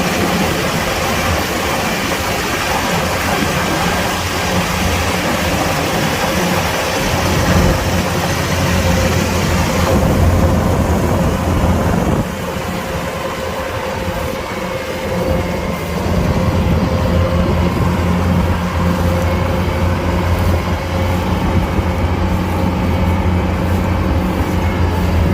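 Kubota DC-105X combine harvester's diesel engine running steadily with a deep hum, harvesting rice. A hissing wash on top thins out about ten seconds in. The engine sound drops lower for a few seconds around the middle, then comes back up.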